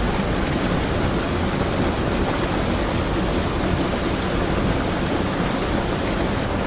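River water rushing over a small waterfall, a steady continuous rush with its weight in the low and middle range and no separate splashes.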